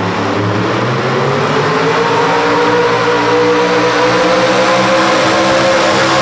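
Ford Ranger pulling truck's engine at full throttle, hauling a weight-transfer sled. Its pitch climbs over the first few seconds, then holds high as the truck pulls down the track.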